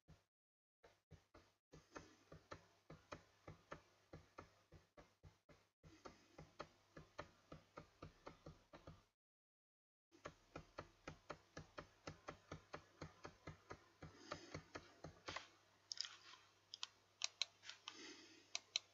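Faint, regular clicking, about four clicks a second, with a few sharper, louder clicks near the end, over a low electrical hum.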